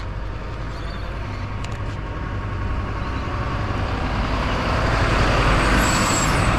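A motor vehicle drives past close by, its engine and road noise building steadily over a few seconds to a peak near the end.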